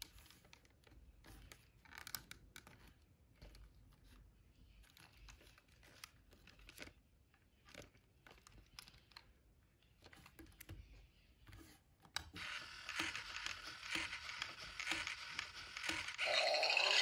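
Faint clicks and rubs of hands handling a hard plastic toy. About twelve seconds in, the Hasbro I-Dog Amp'd robot dog's small speaker starts a loud, dense electronic sound with steady tones through it, which runs on to the end.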